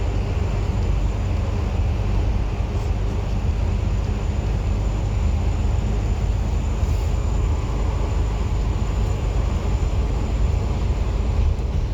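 Cabin noise of a moving bus: steady low engine and road rumble with a thin, faint high whine held throughout.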